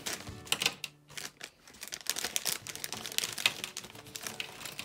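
Clear plastic parts bag crinkling in irregular crackles as it is handled and opened.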